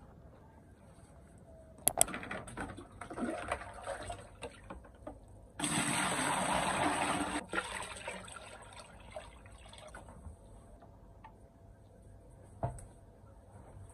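Two sharp clicks, then water scooped and splashing, followed by a gush of about two seconds as a plastic bowlful of water is poured into a plastic bucket; the pour cuts off suddenly and faint drips follow.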